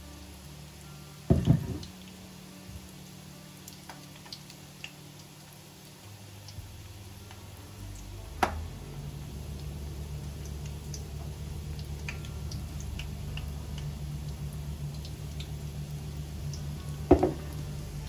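Three sharp knocks, about a second in, midway and near the end, over a steady low hum that sets in about a third of the way through, with scattered small clicks and drips.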